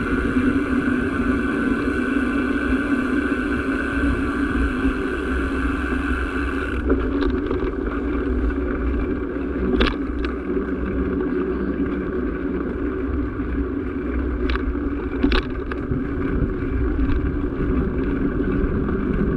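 The engine of the vehicle carrying the camera, running steadily at low speed, with a few short clicks about halfway through and again about three-quarters through.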